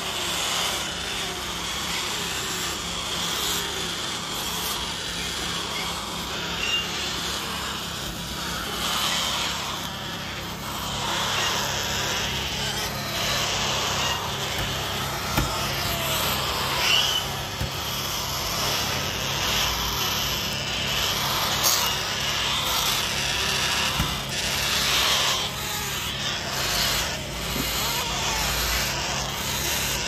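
A brood of parrot chicks making continuous raspy, buzzing begging calls together, over a steady low hum.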